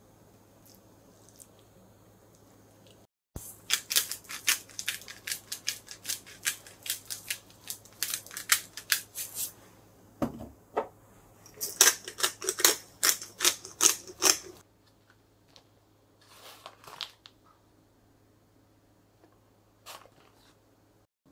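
Salt-and-pepper grinder being twisted: two bouts of rapid crunchy clicking, the first lasting about six seconds and the second a little shorter, with a single knock between them.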